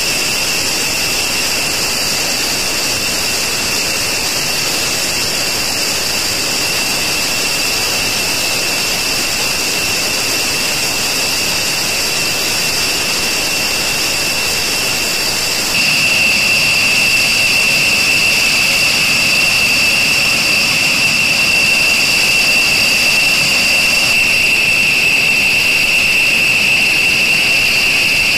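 Jet turbine running steadily: a high-pitched whine over a broad hiss. The sound gets louder and the whine stronger about 16 seconds in.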